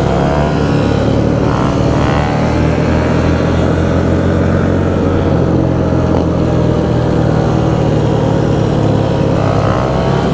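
Honda Grom's small single-cylinder engine running steadily at road speed, with wind noise over it.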